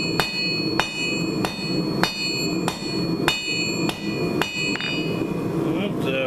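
Hand hammer striking red-hot square steel bar stock on an anvil, about two blows a second, each with a bright metallic ring, as the bar is drawn to a point by hitting two sides. The blows stop about five seconds in.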